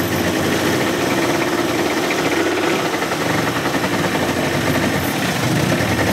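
Johnson 30 hp two-stroke outboard motor running steadily on a test stand.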